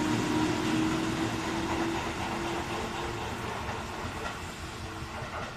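Tobu 8000 series electric commuter train pulling out of the station: a steady traction-motor hum over the rumble of wheels on the rails as the cars pass close by. The sound fades as the rear car moves away, with the hum dying out about three seconds in.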